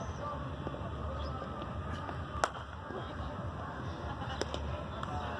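Steady low outdoor rumble with one sharp crack about two and a half seconds in, a cricket bat hitting the ball, and a fainter knock near the end.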